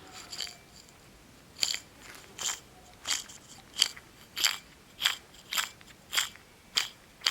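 Faulty turbocharger cartridge, its shaft spun by hand again and again, giving about ten short gritty scraping rumbles a little over half a second apart. The shaft has radial and axial play: worn bearings.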